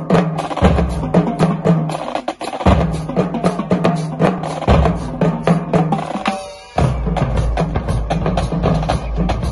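Marching drumline playing a fast cadence on snare drums, tenor drums, bass drums and cymbals. The playing drops out briefly about six seconds in, then the full line comes back in with heavier bass drums.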